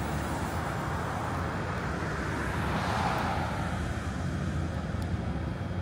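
City street traffic: a steady rumble of road vehicles, with one vehicle going past, loudest about halfway through.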